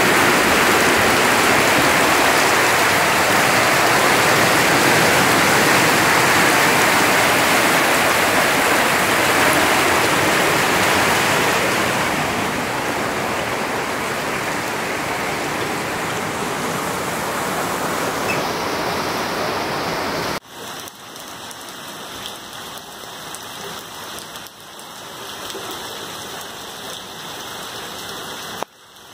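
Heavy rain pouring, a loud steady hiss. About two-thirds of the way through it cuts suddenly to a quieter stretch of rain.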